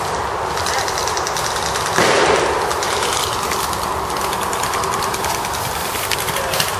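Airsoft guns firing in rapid bursts of clicks, over rustling and handling noise as the camera is moved quickly through the woods; a louder thump comes about two seconds in.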